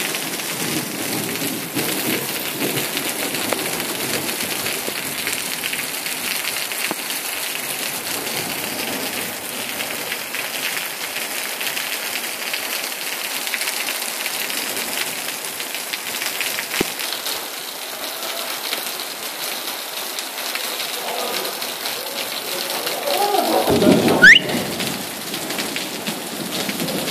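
Heavy rain falling on a wet asphalt lot: a steady, even hiss of drops splashing on the puddled surface. About three seconds before the end comes a short louder burst that reaches low, with a quick rising whistle-like sound.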